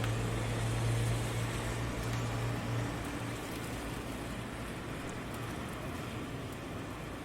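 City rain ambience: steady rain hiss with a low hum of traffic underneath that fades about three seconds in.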